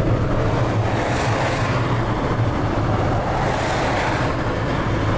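Steady road and engine noise inside a moving vehicle's cabin at motorway speed: a low hum under a rushing hiss, with two brief swells of hiss about a second in and again after three and a half seconds.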